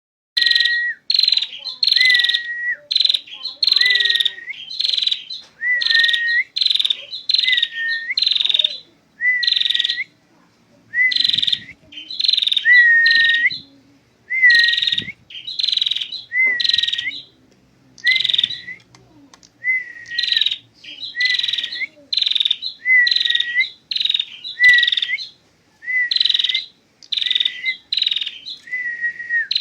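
Female perjak (prenjak) songbird calling without pause: short buzzy calls, each ending in a clear whistled note, repeated about twice a second with only brief breaks.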